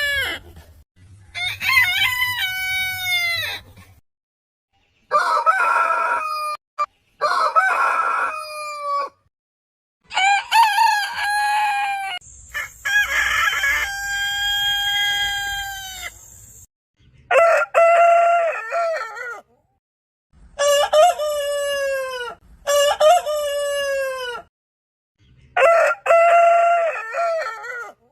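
Roosters crowing, about nine crows one after another, separated by abrupt silent gaps. Some crows are pitched noticeably higher than others, and each ends with a falling drop in pitch.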